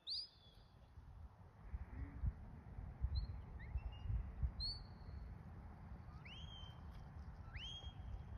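A sheepdog handler's whistle commands to a working border collie: several short whistles that sweep up and then hold steady, the last two alike and about a second and a half apart. A low rumble runs underneath.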